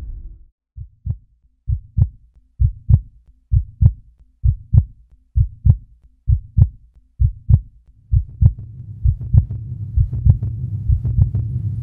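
Heartbeat sound effect from a promotional video's soundtrack: low double thumps, a bit under one pair a second. A low drone swells in under them about two-thirds of the way through.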